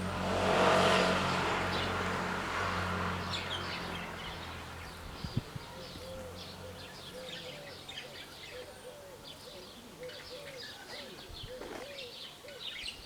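A vehicle passes, loudest about a second in, and its engine hum fades away over the next few seconds; a couple of short knocks follow. Birds then chirp repeatedly.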